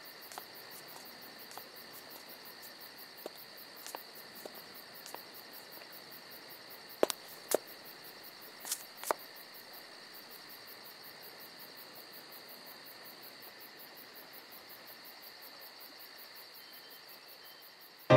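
Crickets chirping steadily in a rapid high-pitched pulse. Two pairs of sharp clicks come about seven and nine seconds in, the loudest sounds here.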